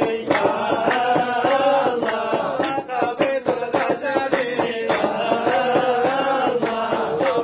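Group of men chanting Sufi dhikr and madih, praise songs for the Prophet, together in long wavering held lines, over a steady beat of sharp strikes about three a second.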